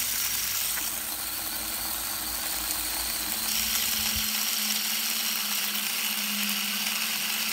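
Rico rechargeable cordless electric mini chopper running steadily, its motor spinning the blades through a jar of peanuts; the lowest rumble drops away about four seconds in.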